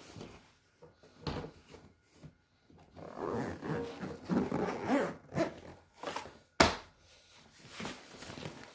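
A fabric carry bag being handled and zipped: scattered rustling and scraping, with one sharp click about six and a half seconds in.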